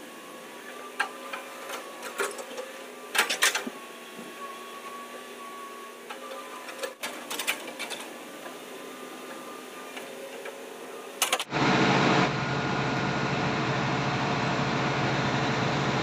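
Hitachi hydraulic excavator at work digging mud: a steady engine and hydraulic hum with a held whine, broken by scattered knocks and clanks of the bucket and arm. About eleven seconds in the sound switches abruptly to a much louder, steady engine drone.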